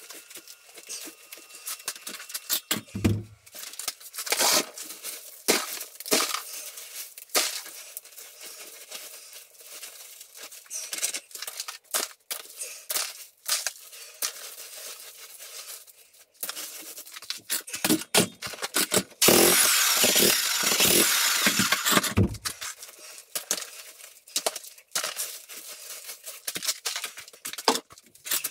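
Broken concrete chunks and rubble being picked up by gloved hands and dropped into a plastic bucket: irregular clattering knocks and scrapes. A louder, dense rattling stretch of about three seconds comes about two-thirds through.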